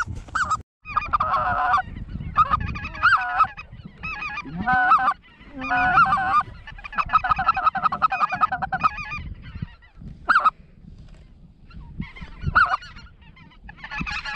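Hand-blown goose calls working incoming specklebellies and Canada geese: rapid runs of honks and clucks in bursts with short breaks. They thin out to a few single notes after about nine seconds.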